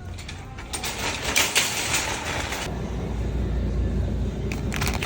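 Car in motion heard from inside the cabin: a steady low road and engine rumble, with music playing quietly. A hissing noise runs through the first two seconds or so.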